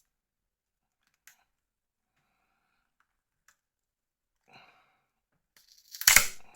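A few faint clicks of small phone parts being handled, then near the end a loud, sharp exhale or sigh of effort as a stubborn part is worked free.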